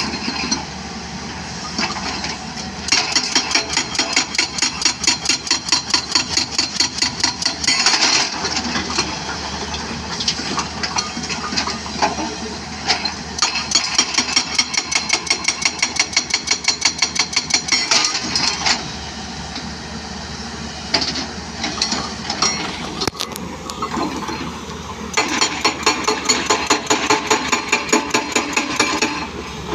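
Excavator-mounted hydraulic breaker hammering in runs of rapid, evenly spaced blows, each run lasting several seconds, with the excavator's diesel engine running between the runs.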